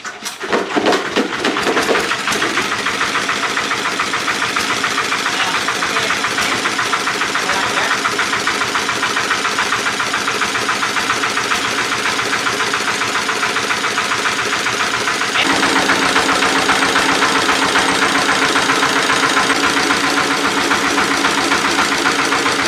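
A freshly repaired generator engine catches within the first second and keeps running steadily. About fifteen seconds in it gets a little louder and its steady hum changes pitch.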